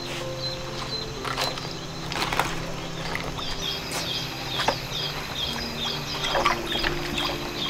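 Water splashing and sloshing in a wooden tub as hands swish heads of lettuce in salt water, with a regular series of high chirps in the background from about halfway through.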